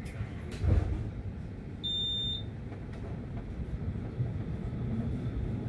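Tram running with a steady low rumble, a single loud clunk just under a second in, and one short high beep about two seconds in.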